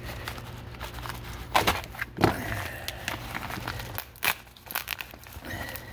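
Plastic bubble mailer being slit and pulled open by hand: crinkling and crackling of the plastic and its bubble-wrap lining, with a few sharper crackles.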